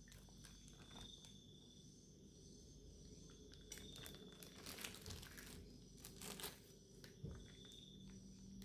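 Faint crinkling and crackling of plastic food packaging being handled and opened, with a few sharper clicks about four to six and a half seconds in. A steady faint high trill from insects runs underneath.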